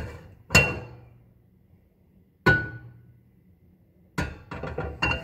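Frying pan clanking against the metal grate of a gas stove as it is set down and shifted: a sharp clank with a short ring about half a second in, another about two and a half seconds in, and a quick run of clanks near the end.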